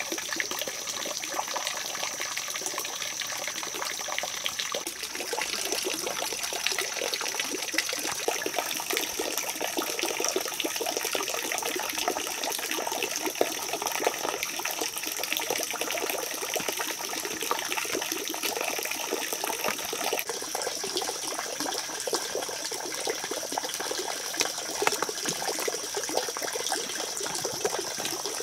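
Steady running water, trickling and splashing without a break, with a thin high steady whine above it.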